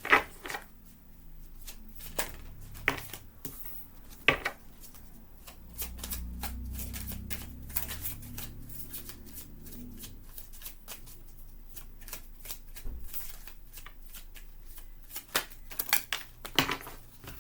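Oracle cards being shuffled by hand: a dense run of crisp card clicks, with louder snaps at the start and about four seconds in.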